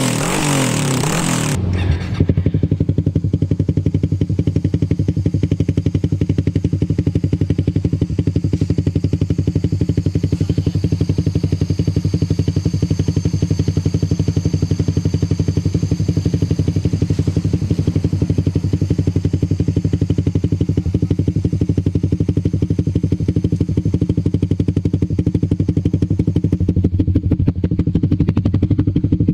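Suzuki Raider 150 Fi's single-cylinder engine idling steadily through an aftermarket Akrapovič-style canister muffler, after a brief louder, noisier rush at the start.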